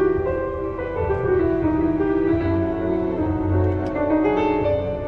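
Classical music played loud over a Lexus CT200h's Mark Levinson car audio system, heard inside the cabin, with the volume being turned up.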